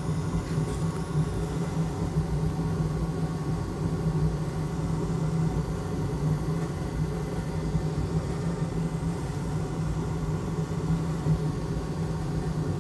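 Steady low hum of a bench fume extractor's fan running, with no change in pitch or level.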